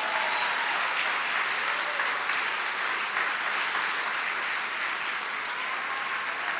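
Congregation applauding: a steady, dense round of clapping from many people that eases slightly near the end.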